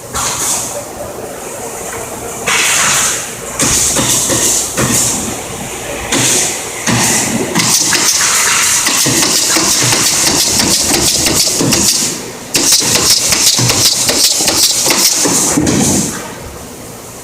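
Pneumatic stapler driving staples into wood, a long series of sharp shots with bursts of compressed-air hiss. The hiss is loudest in two stretches, one through the middle and one after a short break near the end.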